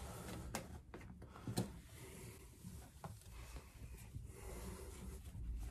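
Fibre exhaust heat wrap being wound tightly by hand around a motorcycle's chrome exhaust header pipe: faint rubbing and scratching of the cloth against the pipe, with light clicks about half a second and a second and a half in.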